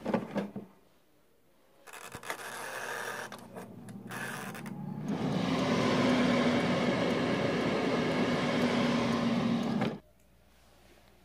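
Air fryer's timer knob turned with a few clicks, then the air fryer running: a steady fan whir with a low hum, which stops abruptly near the end.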